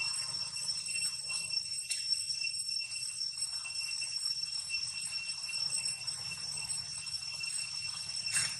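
Steady high-pitched drone of insects, with a short sharp rustle near the end.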